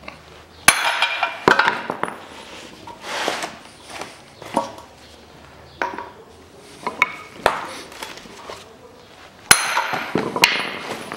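Sledgehammer blows on a steel socket used as a drift, knocking a Ford Ranger front hub out of its wheel bearing in the steering knuckle. There are sharp, ringing metal strikes, the hardest about a second in and again near the end, with lighter knocks and clinks between.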